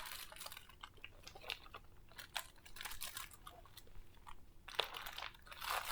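Plastic packaging crinkling and rustling as it is handled: a run of faint crackles, with a denser rustle near the end.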